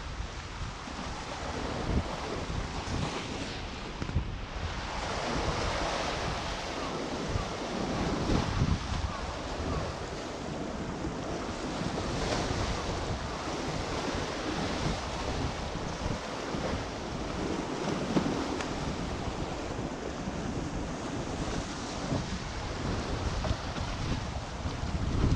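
Sea waves washing against a rocky shoreline, rising and falling in surges, with wind buffeting the microphone.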